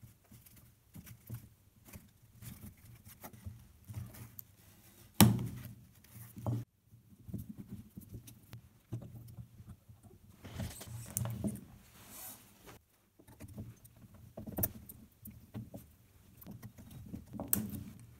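Knife and side cutters working at the metal connecting strips of a cordless-tool NiMH battery pack to free its cells: irregular scrapes, metallic clicks and snips, with cells knocking together. One sharp click about five seconds in is the loudest.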